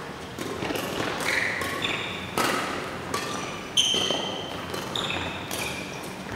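Badminton doubles rally: several sharp racket strikes on the shuttlecock, the loudest about four seconds in, with court shoes squeaking on the floor as the players move.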